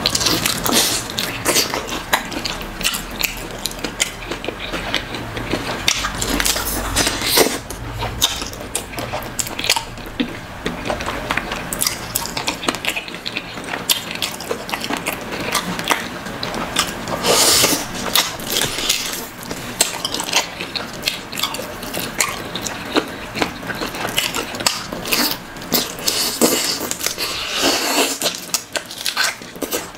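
Close-up wet eating sounds of a man eating fish in ogbono soup by hand: steady chewing, lip-smacking and sucking, with many short wet clicks and a few louder bursts of smacking about halfway through and near the end.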